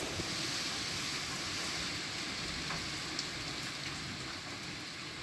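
Heavy hurricane rain driven by wind, a steady hiss with a few faint ticks of drops.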